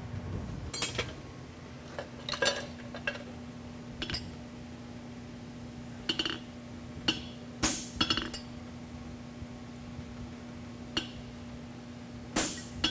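Scattered light metallic clinks and taps, about ten at uneven intervals, of steel farrier's tools against a steel horseshoe on an anvil, over a steady low hum.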